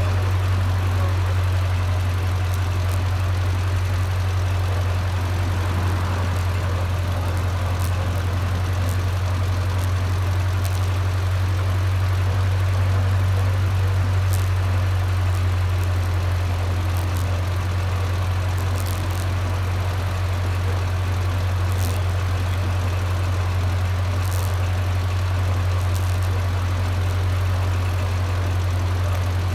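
Small antique tractor's engine running at a steady speed while the tractor drives along, a steady low drone.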